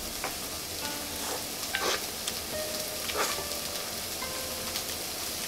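Chopped pickled takana mustard greens sizzling in oil in a frying pan: a steady hiss with a few sharp crackles.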